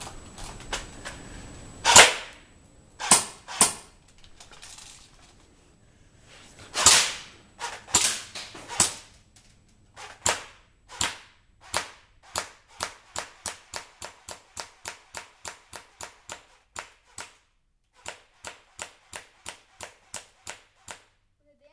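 Airsoft AK-47 rifle fired shot by shot, sharp pops. A few come scattered at first, then an even run of about three a second, a short break, and another run.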